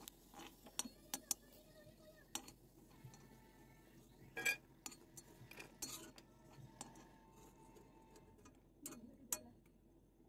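Metal slotted spatula clinking and scraping against a kadai while fried cashews are scooped out: a scatter of sharp clicks, the loudest about four and a half seconds in.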